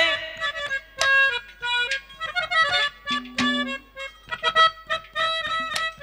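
Harmonium playing a folk melody in a run of held notes that change pitch every half second or so, with a few sharp percussive strikes.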